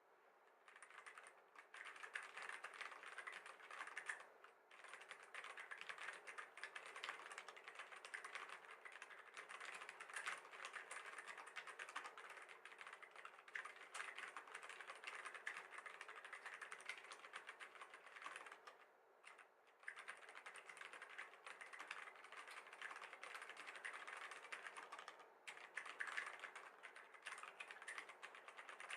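Continuous typing on a Vortex Core 40% mechanical keyboard with Cherry MX Silver linear switches: a dense, quick run of key clicks, broken by short pauses about four, nineteen and twenty-five seconds in.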